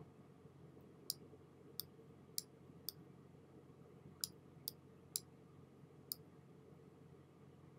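Eight faint, sharp computer mouse clicks at irregular intervals, over a quiet room tone.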